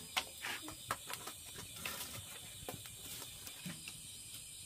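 A scatter of faint, sharp clicks and light taps over the first few seconds, then only a faint steady hiss.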